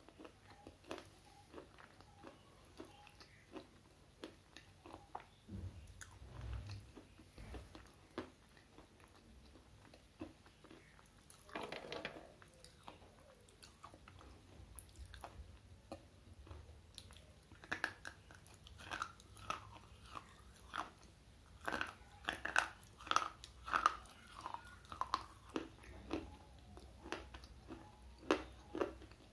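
Close-miked slate pencils being bitten and chewed: a run of short, gritty crunches. The crunches become louder and come closer together from about 18 seconds in.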